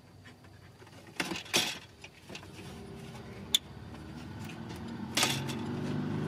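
Plastic dashboard trim bezel being handled and pressed into the dash, with a few knocks and clicks and a sharp snap about three and a half seconds in. A low hum grows louder in the last couple of seconds.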